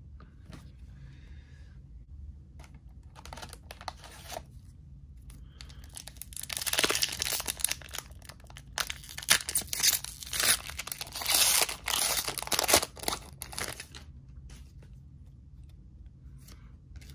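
A trading-card booster pack's foil wrapper being crinkled and torn open by hand: light handling at first, then about six seconds in a run of loud rips and crinkles lasting several seconds, before it goes quiet again.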